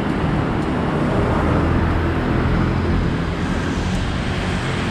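Steady road traffic: motorbike and car engines running along a busy city street.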